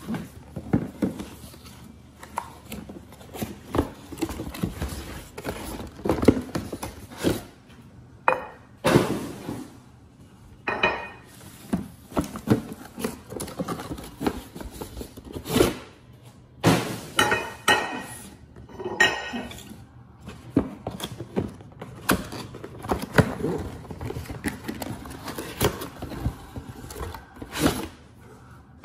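Cardboard boxes of Villeroy & Boch porcelain Christmas plates being handled, slid and set down on a table: repeated knocks and scrapes of cardboard, with the dishes inside clinking a few times.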